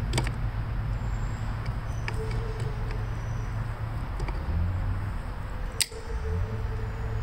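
A few sharp metal clicks, the loudest about six seconds in, as a small screwdriver is turned by hand to back a bent screw out of a magneto cover, over a steady low outdoor rumble.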